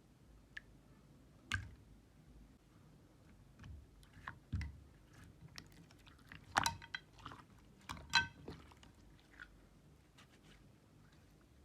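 Jelly slime being handled and squeezed: irregular sticky clicks, crackles and squelches, the loudest cluster a little past the middle.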